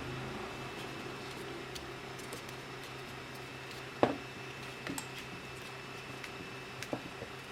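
A few isolated clicks and knocks of hard plastic, the loudest about four seconds in, over a steady low electrical hum. This is the mechanical keyboard and its parts being handled, not typed on in rhythm.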